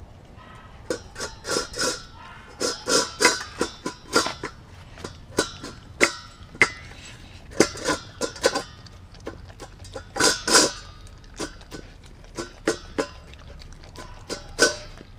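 A Kelpie–German Shepherd cross dog eating raw meat from a stainless steel bowl: irregular wet chewing and licking, with clinks and short rings of the metal bowl as her muzzle knocks it about on the tiles. The bowl is being licked nearly clean.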